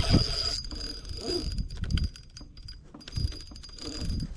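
Spinning reel working under the heavy pull of a hooked sturgeon: a thin high whine that stops and starts, with light clicks, over low rumbles.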